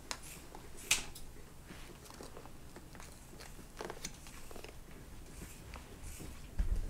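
Hand-stitching a leather shoe sole: an awl piercing the sole and thread drawn through and pulled tight, giving scattered faint clicks and rasps, the sharpest about a second in. A low bump near the end.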